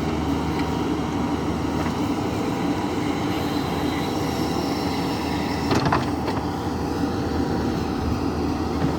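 The diesel engine of a JCB 3DX backhoe loader running steadily under digging work, with a couple of sharp metallic knocks about six seconds in.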